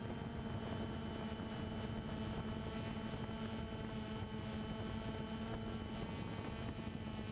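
Camera drone's rotors humming steadily in flight, heard close up from the drone itself: an even whine made of several fixed tones over a rushing noise.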